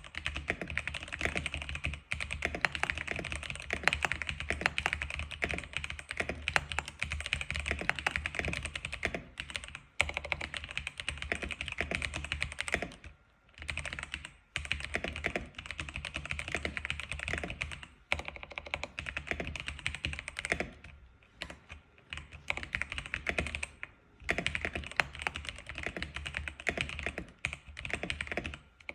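Continuous fast typing on an X87 keyboard: a dense run of key clacks with a few brief pauses along the way.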